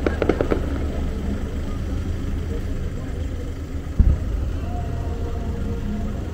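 Aerial fireworks going off: a quick run of crackling pops right at the start, then one sharp bang about four seconds in, over a steady low rumble.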